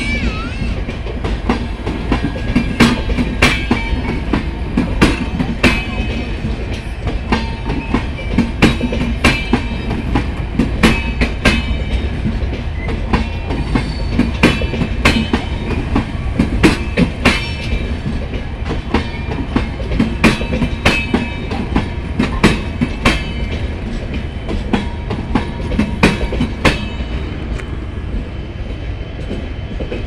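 Indian Railways passenger coaches rolling past at close range: a steady rumble with repeated sharp clickety-clack knocks as the wheels cross the rail joints. The knocks stop and the rumble fades near the end as the last coach moves away.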